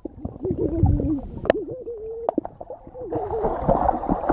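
Muffled underwater sound from a phone held under the surface of a swimming pool: gurgling with a wavering tone that glides up and down. There are two sharp clicks, and a hiss of water noise from about three seconds in.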